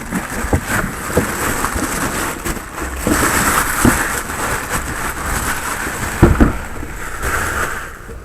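Rustling handling noise with scattered knocks and bumps, loudest about three seconds in, and two heavier thumps near the end.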